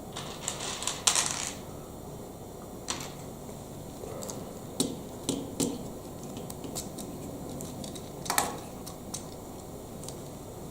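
Plastic Lego Technic pieces rattling and clicking as they are handled and fitted together. A longer rattle about a second in is followed by scattered single clicks and taps.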